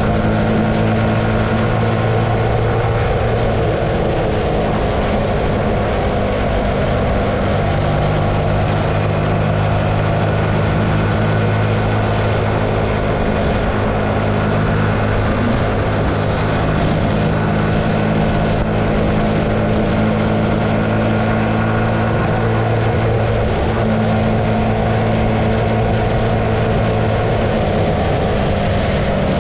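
Archive AM60 125cc café racer's engine running while riding, its pitch stepping up and down a few times as the speed changes, with steady wind noise over it.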